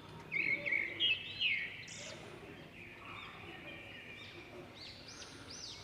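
Small birds chirping: quick runs of short high chirps, loudest in the first second and a half and fainter again near the end, over a faint steady background hiss.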